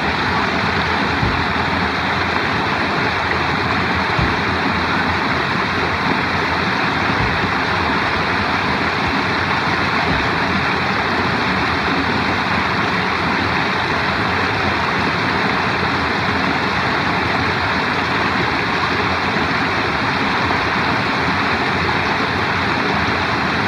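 Shallow rocky stream, its water running steadily over stones and a small cascade.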